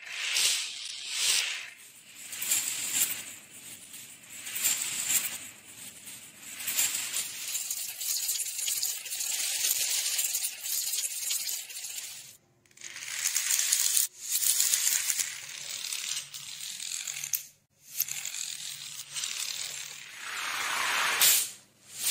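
Small wooden dominoes toppling in long chains, a rapid dense clatter of little clicks that swells and fades as each run spreads. It is broken by a few brief gaps between runs.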